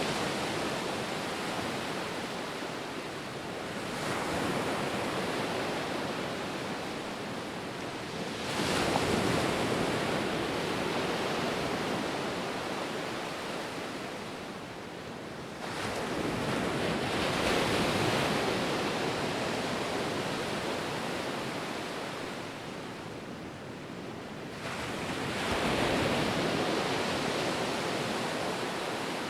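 Ocean surf: waves breaking and washing in as a continuous hiss that swells four times, every several seconds, each swell fading slowly before the next.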